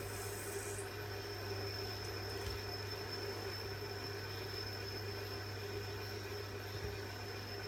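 Fidget spinners spinning on their bearings: a steady whirring hum with a faint high tone.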